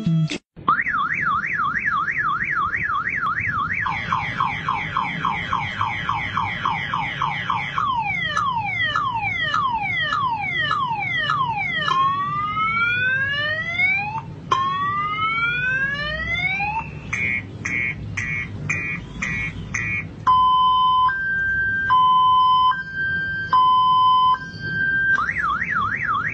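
Motorcycle anti-theft alarm siren, loud and cycling through its tones: a fast up-and-down warble, then falling sweeps, rising whoops, rapid chirps and a slow two-tone alternation, returning to the warble near the end.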